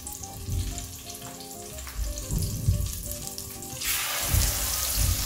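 Egg-battered flounder fillets frying in hot butter and olive oil in a sauté pan, a soft sizzle that jumps to a loud, dense sizzle about four seconds in as another fillet is laid into the fat. A quiet melody plays underneath.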